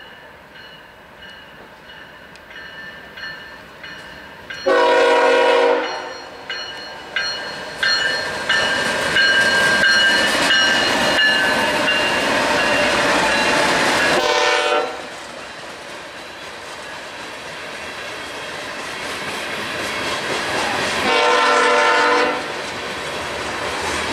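BNSF grain train passing close by: the lead diesel locomotive's air horn sounds a long blast about five seconds in, a short one midway and another long one near the end. Between the blasts the locomotives' engines go by loudly, then the covered hopper cars clatter over the rails, growing louder.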